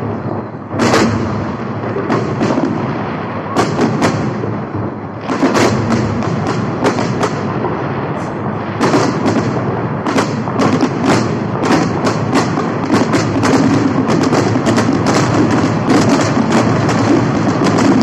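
Fireworks salute going off: a string of sharp bangs and pops over a steady rumbling hiss, a few single bangs at first, then coming faster and close together in the last several seconds.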